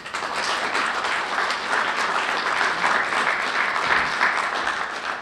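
Audience applauding, starting abruptly and dying away near the end.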